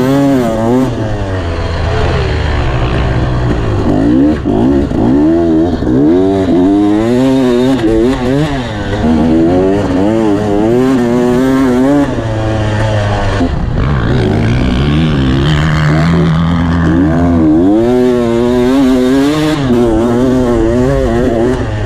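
Dirt bike engine ridden hard on a motocross track, its pitch repeatedly climbing and dropping every second or two with throttle and gear changes, easing off briefly past the middle before pulling up again.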